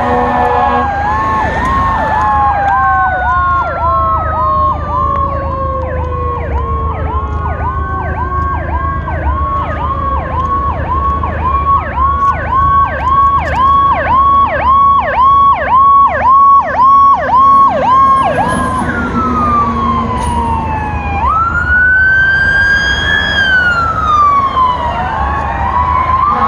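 Emergency sirens of responding fire apparatus sounding together. A fast yelp repeats about twice a second, loudest past the middle, while slower wails glide down in pitch and one rises sharply and falls again near the end, over a low rumble.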